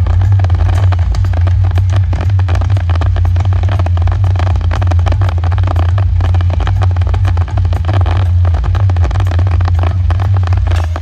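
Fireworks going off in rapid succession, dense crackling and bangs over a loud, constant low rumble.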